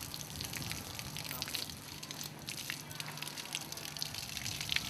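Water trickling and splashing, with many small scattered drips and a faint steady low hum.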